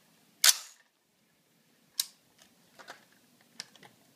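AR-15 rifle being handled ready to fire, with sharp metallic clacks of its action. The loudest comes about half a second in and another at about two seconds, followed by a few lighter clicks.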